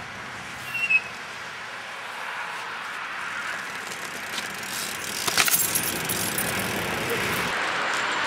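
BMX bike rolling on concrete pavement, a steady noise of tyres and wind on the moving camera's microphone, with a short burst of sharp clacks about five seconds in.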